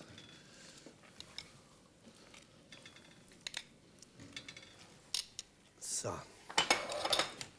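Scattered light clicks and clinks of cooking utensils and dishes, with a wooden spoon stirring in a steel stockpot.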